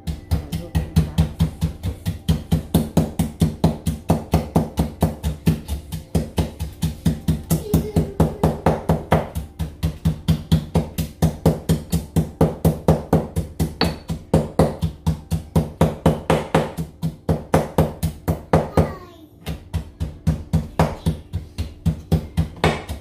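Stone mortar and pestle pounding rhythmically, about four strokes a second, crushing seasonings with salt. The strokes pause briefly about nineteen seconds in.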